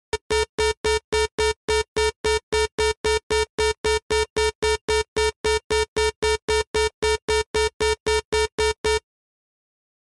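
Electronic beep repeating rapidly at one steady pitch, about four short beeps a second, stopping about nine seconds in.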